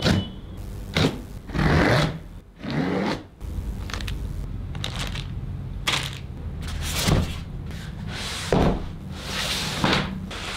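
A box cutter slicing the tape on a cardboard TV box, then cardboard flaps and foam packing scraping and rubbing as the box is opened and the packed TV is slid out. It comes as a string of short scraping sounds spaced a second or so apart.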